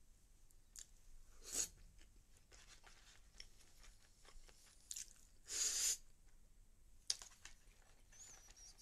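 Close-up chewing and small mouth clicks of someone eating a boxed lunch. Two short hissing noises break in, the louder about five and a half seconds in.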